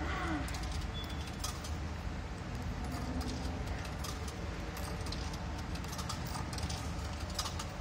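Coins clinking and rattling as they are fed one by one into a ferry token vending machine, with many irregular sharp metallic clicks. A steady low rumble runs underneath.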